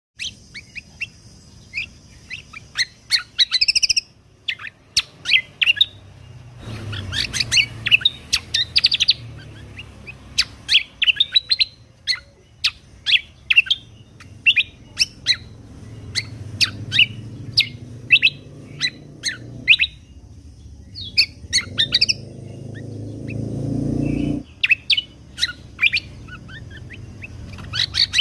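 A kecial kombok (cucak kombo) songbird singing a fast run of short, sharp chirping notes with quick trills. A low rumble sits underneath for long stretches.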